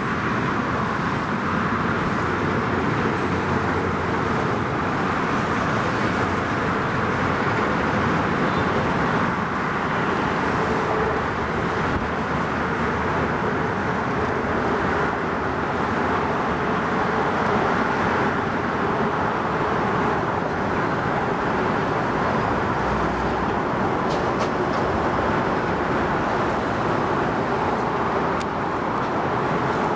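Steady road traffic noise: a continuous rumble and hiss of cars and trucks passing on the roads around and beneath.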